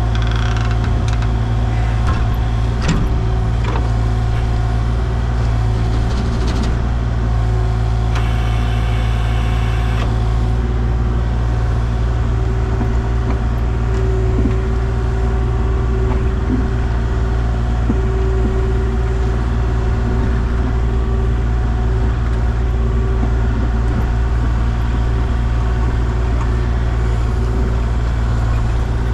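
Excavator's diesel engine running steadily with a deep rumble, with a few light clicks and a brief higher hiss about eight seconds in.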